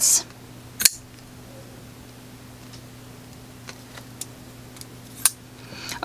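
A steel-bladed framelock folding knife being handled, with metal clicks from its blade and lock: two sharp clicks, one about a second in and one near the end, and a few faint ticks between them.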